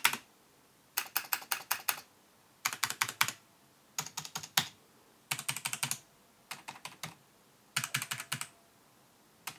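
Space bar of a Genesis Thor 303 TKL mechanical keyboard hammered in quick bursts of several clacks, about seven bursts with short pauses between them. Keys are struck for a decibel-meter loudness test.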